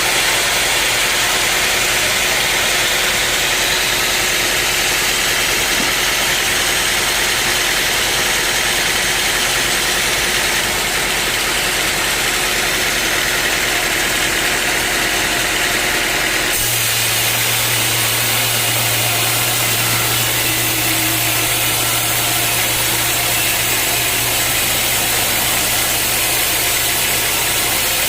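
Sawmill machinery running steadily. The tone changes abruptly about two thirds of the way through, when a low steady hum comes in.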